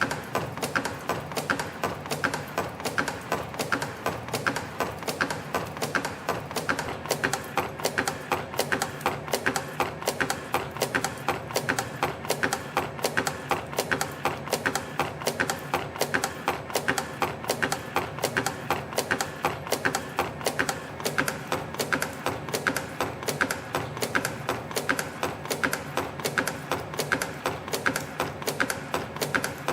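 CNC micro spring machine coiling and bending 0.55 mm wire into torsion springs: a fast, even mechanical clicking and tapping from the forming tools, a few strokes a second, over a steady machine hum.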